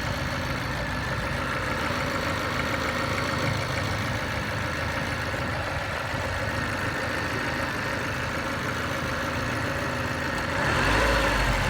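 Mazda 323F (BA) engine idling steadily with a knock in it, the fault the owner is recording. It gets louder near the end.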